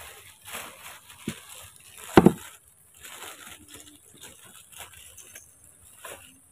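Scattered short rustling and crackling noises, with one loud thump about two seconds in.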